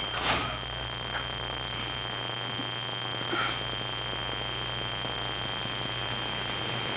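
Steady electrical hum and a thin, high steady whine under an even hiss, with a short knock about a third of a second in.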